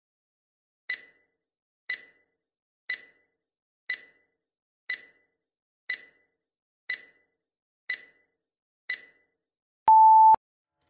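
Countdown timer sound effect: nine short ticks, one a second, then a single steady beep of about half a second as the timer reaches zero, signalling that time is up.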